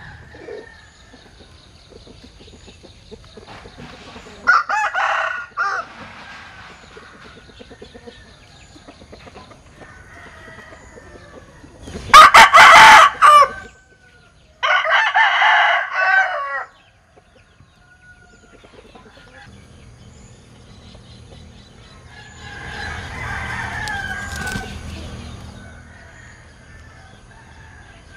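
Linh kê rooster crowing its unusual crow: one crow about five seconds in, then two loud crows back to back around the middle. In the second half a low steady hum swells and fades under fainter calls.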